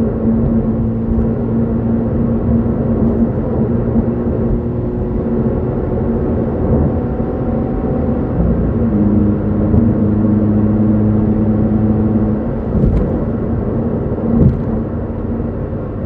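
Hyundai Veloster N's turbocharged 2.0-litre four-cylinder engine and exhaust, heard from inside the cabin under hard acceleration at high revs, with road rumble underneath. Its note changes about nine seconds in, around a gear change, and again about three seconds later. A couple of short knocks come near the end.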